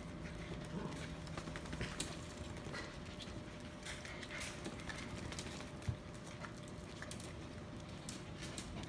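Dogs moving about: scattered light clicks and taps from three-week-old puppies shuffling in a wire playpen, with faint room noise.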